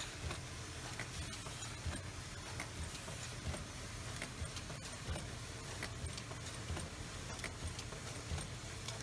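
Automatic ballpoint pen assembly machine running: a steady low hum under a fast, irregular run of small clicks and clacks from its moving parts and the plastic pen parts.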